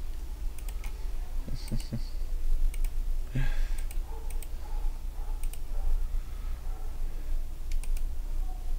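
Computer mouse and keyboard clicks, mostly in quick double clicks about a second apart, with a few duller knocks, as words are selected, copied and pasted. A steady low electrical hum runs underneath.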